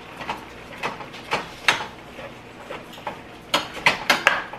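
A kitchen utensil chopping raw ground beef in a stainless steel pot, knocking and scraping against the pot's sides and bottom. Scattered clicks, then a quick run of louder knocks near the end.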